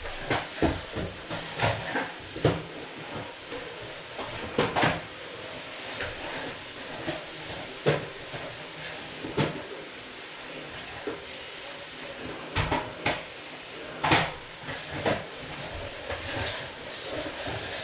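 Household items being knocked, handled and set down during house cleaning: irregular knocks and clatters, loudest about 14 s in, over a steady hiss.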